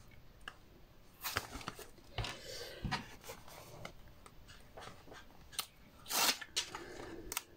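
Paper and card being handled on a work table: scattered short taps and rustles, with a longer rustle about two and a half seconds in and a louder one about six seconds in.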